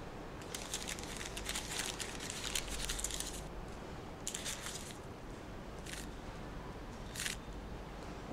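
A paper card crumpled in a fist, crackling for about three seconds, then a few shorter crinkles as it is squeezed again.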